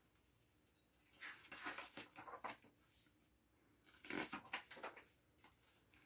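Paper rustling as a picture book is opened and its pages are turned: a cluster of rustles about a second in and another about four seconds in.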